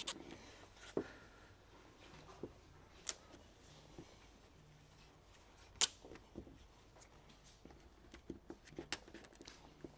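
Faint rubbing and small sharp clicks of a hand squeegee working a vinyl stripe decal down onto a painted car fender. A few louder clicks stand out, and a run of small ticks comes near the end.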